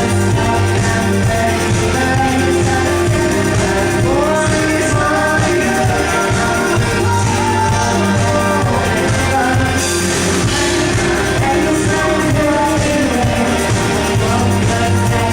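Live rock band playing loud amplified music, a lead vocal singing over a steady bass line.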